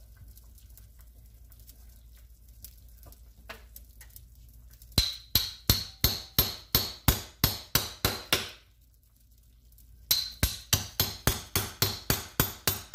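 Knife chopping on a cutting board in quick, even strikes, about four a second. A first run starts about five seconds in and stops for a moment, then a second run starts again a second and a half later.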